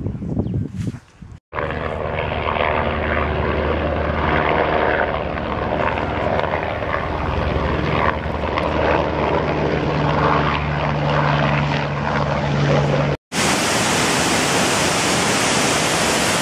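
A small aircraft's engine droning steadily with a low hum and its overtones, growing a little louder towards the end, then cutting off suddenly about 13 seconds in. A waterfall rushing follows.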